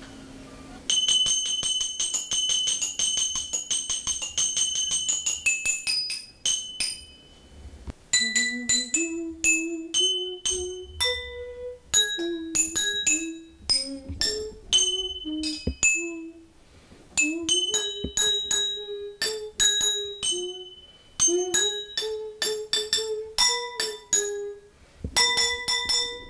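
Drinking glasses and glass jars filled with water to different levels, struck with a stick to play ringing notes. A quick run of rapid taps comes first, then single strikes pick out a tune. A lower melody that glides in pitch runs beneath the strikes.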